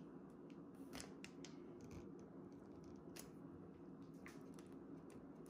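Faint scraping and ticking of a serrated knife sawing through a frosted chocolate bar slab, a series of short irregular scrapes over a steady low room hum.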